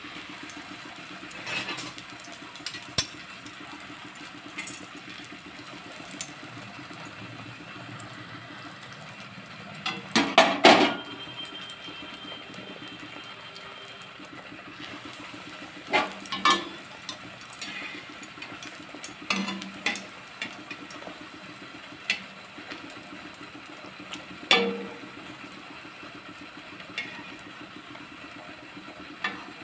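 Bread slices frying in hot oil in a steel kadhai with a steady sizzle, while a metal utensil clinks and knocks against the pan every few seconds; the loudest clatter comes about ten seconds in.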